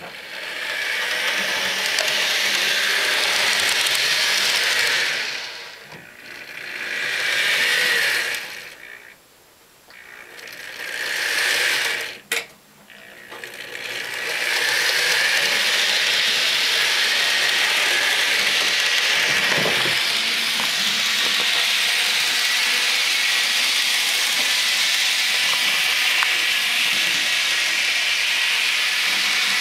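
Model diesel locomotive's electric motor and gears whirring as it is throttled: the whir swells and dies away three times, then runs steadily from about fourteen seconds in. It is the bare mechanical noise of the drive, with no sound decoder. A single sharp click comes about twelve seconds in.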